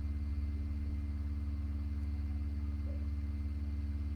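A steady low hum, with a few constant deeper tones and no change over the whole pause.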